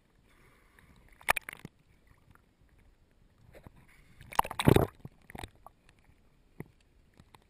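Sea water sloshing and splashing around a camera held at the sea surface, in a few short splashes: one about a second in, the loudest a little past the middle with a deep thud, then lighter slaps.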